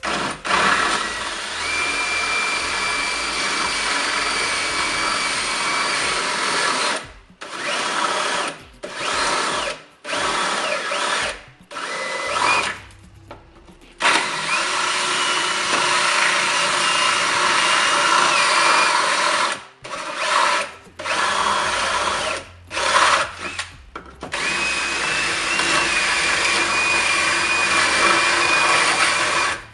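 Cordless drill boring holes through a fibreglass motorcycle fairing, running at a steady high whine. It runs in three long stretches of several seconds, with short bursts between as the trigger is pulsed.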